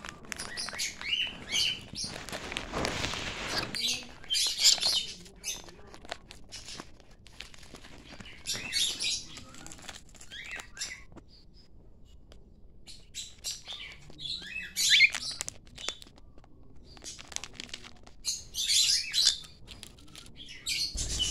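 Small pet parrots, lovebirds and a cockatiel, giving clusters of shrill chirps and squawks every few seconds. A brief rustling noise runs from about two to four seconds in.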